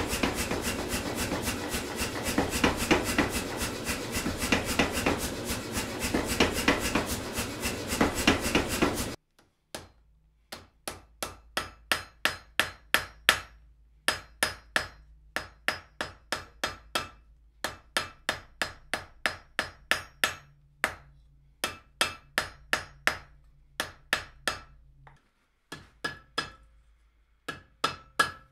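Say-Mak power hammer pounding a hot steel bar in rapid, evenly spaced blows over a steady mechanical noise, drawing out the hook's taper; it stops abruptly about nine seconds in. Then a hand hammer strikes hot steel on the anvil in quick runs of separate blows with short pauses, each blow ringing briefly.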